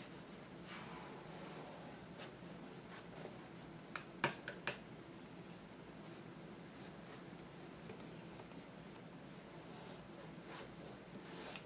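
Faint scratchy strokes of a paintbrush working oil paint onto a canvas panel, with a few small clicks about four seconds in.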